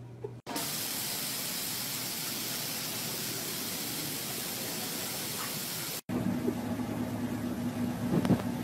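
A steady, even hiss like white noise for about five and a half seconds, which cuts off abruptly. Then a car's engine hums at idle, with a few short sharp sounds over it.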